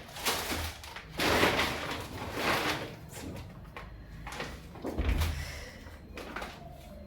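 A package being opened and handled by hand: its wrapping rustles in several short bursts, with a dull thump about five seconds in.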